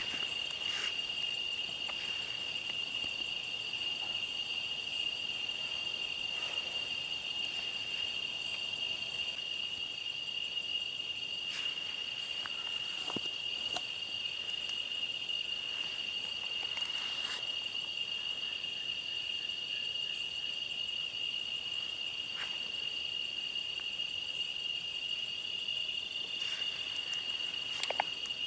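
Steady, unbroken high-pitched chorus of insects droning in the forest, with a few faint ticks of handling now and then.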